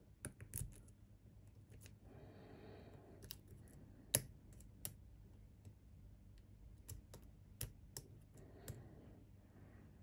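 A lock pick and tension wrench working the pins of a pin-tumbler cylinder lock: scattered small metallic clicks, the sharpest about four seconds in. Two short soft hisses come in between.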